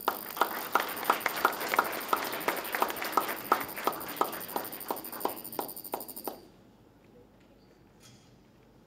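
Audience applauding, with individual claps standing out, until it cuts off suddenly about six seconds in.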